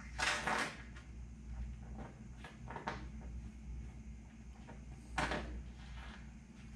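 Short scraping and rubbing sounds of a thin aluminium stabilizer skin and dimpling tooling being handled. The loudest comes in the first second and another about five seconds in.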